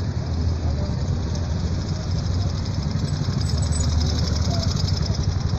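A motor vehicle engine idling: a steady low rumble with a fast, regular pulsing that grows more distinct near the end.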